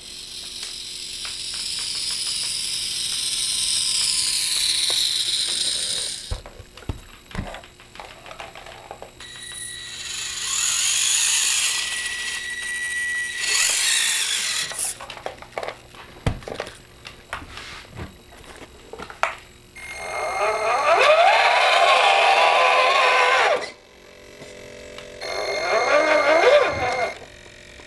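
Electric motors and gear drives of scale RC trucks whining in about five throttle bursts, the pitch rising and falling as they speed up and slow down, with small clicks between bursts.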